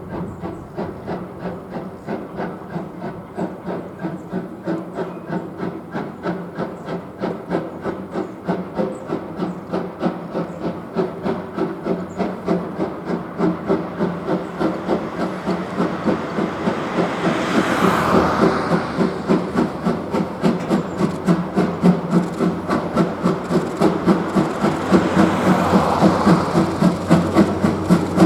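JNR Class C11 steam tank locomotive working under power, its exhaust beats in a steady rapid rhythm and growing louder as it approaches. Rushes of steam hiss swell up about two-thirds of the way in and again near the end.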